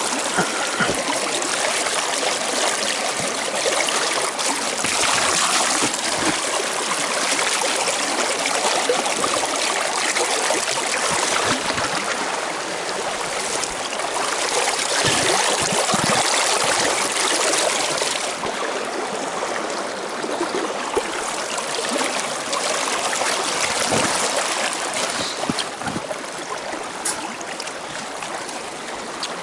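Small mountain creek running over rocks under snow-covered logs: a steady rush of water.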